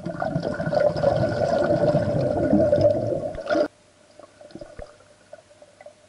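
Air bubbles rushing out as a breath-holder exhales underwater, heard through an underwater camera: a loud bubbling rush that lasts about three and a half seconds and cuts off suddenly, followed by a few faint pops.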